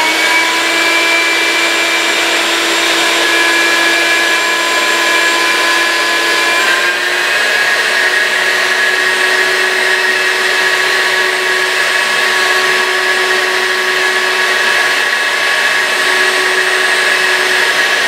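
Vacuum motor drawing air through a vacuum-forming table, running steadily and loudly with a high whine while a heated plastic sheet is pulled down over a window plug. Its pitch steps up slightly about seven seconds in.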